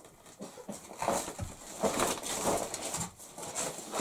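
Irregular scraping, grating and light knocking of brick, clay mortar and a steel angle piece as hands work them into place on a brick stove top. The scraping starts about a second in and stops near the end.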